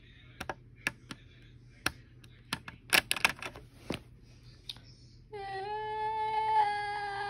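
Plastic Lego bricks clicking and knocking together as they are handled, a string of sharp clicks. About five seconds in, a young voice starts one long held note, sung or hummed, that is louder than the clicks.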